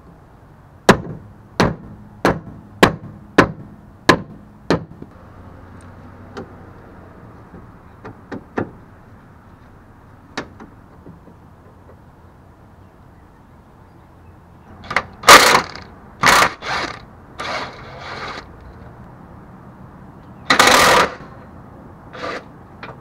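Seven sharp metallic knocks, about one and a half a second, then a few scattered clicks. From about halfway on comes a series of short rattling bursts from a DeWalt cordless impact wrench, with one longer burst near the end, as it loosens suspension bolts under the car.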